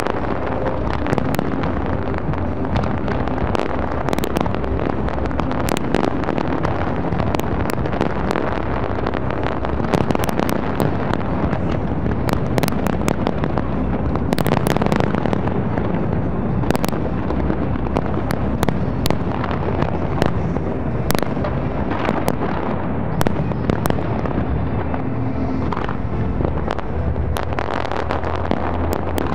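Large fireworks display going off continuously: a steady low rumble under many sharp bangs and cracks, close together.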